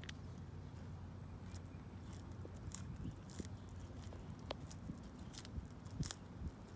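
Sulcata tortoise biting and chewing leafy greens: irregular crisp crunches and snaps as its beak tears the leaves, over a steady low background hum.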